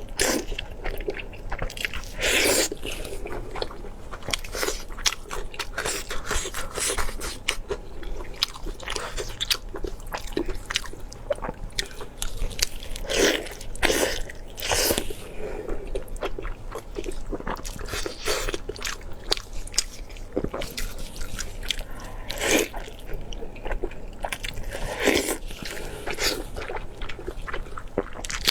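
Close-miked eating: a person biting and chewing food with wet mouth clicks and frequent crunches, a few louder crunching bites scattered through.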